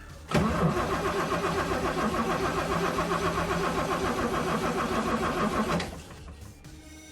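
1980 Toyota Land Cruiser FJ45's 2F inline-six petrol engine started up and running steadily, cutting in suddenly and fading out after about five and a half seconds.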